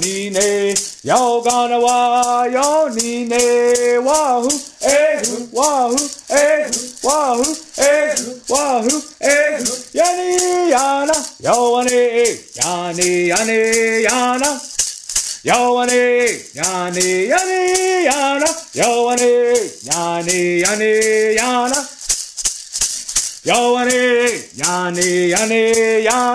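A man singing a traditional Cherokee Friendship Dance song in short phrases, keeping time with a shaken hand rattle at a steady, even beat.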